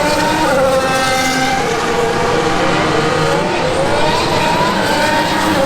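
Several Formula 1 cars' turbocharged V6 hybrid engines running loud at once. Their pitches climb and drop back in steps as the cars accelerate and change up through the gears, overlapping continuously.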